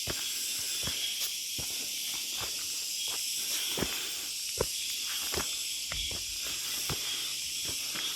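Footsteps of a person walking at a steady pace, about one step every three-quarters of a second, over a steady high hiss.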